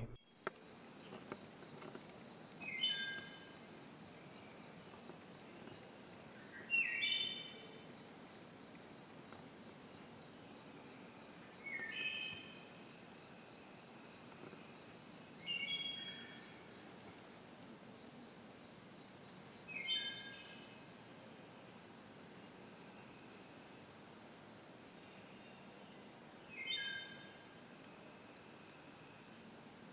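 Steady high-pitched insect drone in a forest, with a bird singing a short phrase about six times, every four to five seconds.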